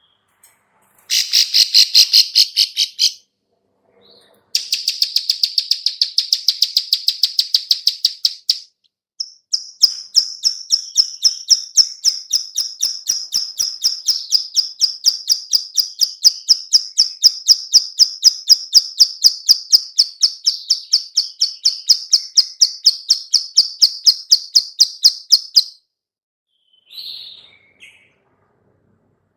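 Female plain prinia giving its 'klik-klik' call: runs of sharp, high clicks at about five a second, a short run, a longer one, then a long unbroken run, with a single short note near the end. It is the female's call that bird keepers play as a lure to make other prinias answer.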